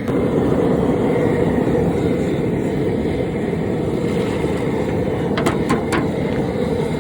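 Steady loud roar from a propane-fired seafood boil cooker, its burner running under the boiling pot. Three quick clicks come near the end.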